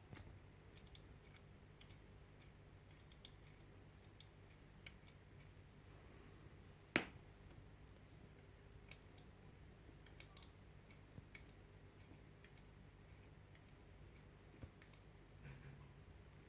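Small plastic clicks from a 3D-printed PLA trigger and spring mechanism being worked by hand, with one sharp, much louder snap about seven seconds in.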